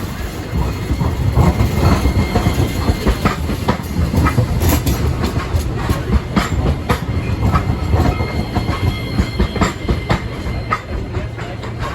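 Rail vehicle passing close by: a steady low rumble with its wheels clacking and clicking over rail joints.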